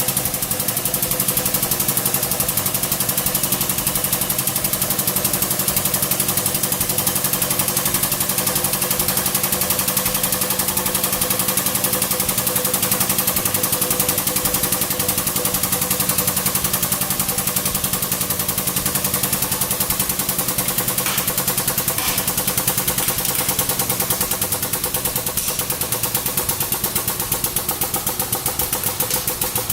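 Hydraulic press power unit running steadily: a constant mechanical hum with a fast, even pulsing, and two faint clicks about a second apart a little past the two-thirds mark.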